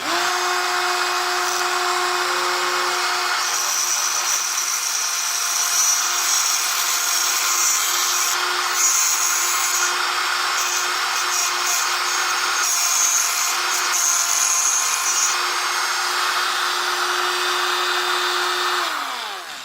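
Handheld tungsten electrode grinder's electric motor starts abruptly and runs at a steady high pitch while its diamond wheel cuts through a tungsten electrode. Near the end the motor is switched off and winds down, its pitch falling.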